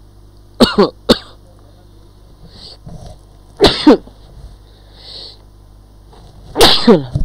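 A person sneezing loudly three times, about three seconds apart.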